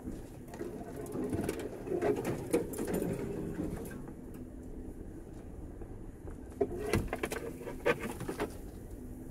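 Off-road vehicle engine running at low speed, with two clusters of knocks and rattles, about two seconds in and again near seven seconds.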